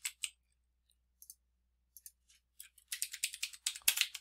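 Computer keyboard typing and mouse clicks: a few single clicks, then a quick run of keystrokes about two and a half seconds in, ending in a louder click.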